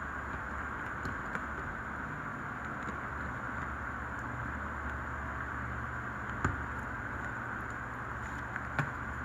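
Steady hiss and low hum of a running fan or blower, with two small clicks, one about six and a half seconds in and one near the end.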